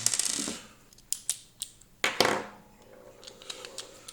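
Hand-assembly clatter of a screwdriver working screws into plastic housing parts: two louder rattling knocks, one at the start and one about two seconds in, with lighter clicks and ticks between.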